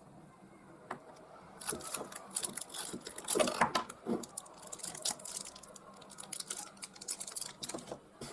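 Small objects being handled close by: a run of quick clicks, taps and crinkly rustles, busiest about three to four seconds in.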